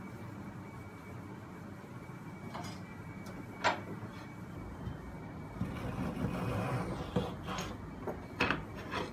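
Hand tools being handled and set down on a wooden workbench, over a steady low hum: one sharp knock about a third of the way in, a stretch of wood rubbing and sliding past the middle, then several light knocks near the end.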